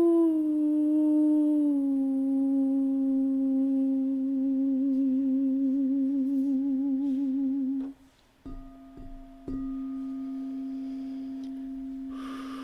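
A woman's voice toning one long hummed note that slides down in steps and wavers near the end, breaking off about eight seconds in. A few soft knocks follow, then a steady ringing tone holds at about the same pitch.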